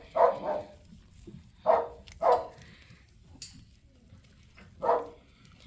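Dog barking: a few short single barks, irregularly spaced.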